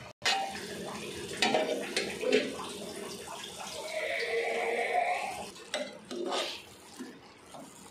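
A metal spoon knocking and scraping against an aluminium pot while stirring cooked foxtail millet upma, with several sharp clinks.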